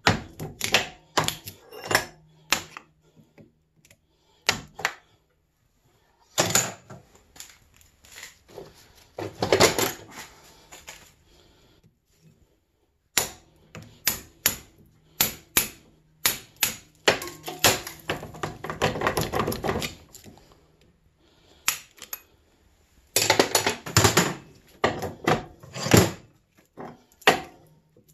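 Sharp metal-on-metal knocks and clinks, irregular and sometimes in quick rattling runs, as a screwdriver and pry bar are driven into and lever apart the steel laminations of a small transformer clamped in a bench vise.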